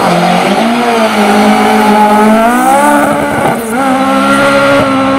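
Spiess SP G02 2.0-litre naturally aspirated four-cylinder race engine in a VW Scirocco Mk1 hillclimb car, pulling hard with rising revs. There is a short drop at a gearshift about three and a half seconds in, then it runs on at high revs.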